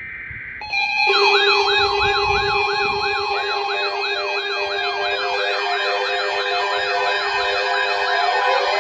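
Layered electronic sirens sounding an emergency alert: a fast yelp rising and falling about three times a second over a steady lower tone, with a higher sweeping tone above. The sirens start about a second in, after a brief high buzzing tone.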